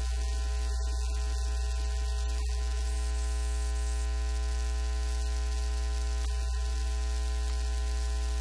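Steady electrical mains hum with a constant layer of hiss, unchanging throughout, and no speech.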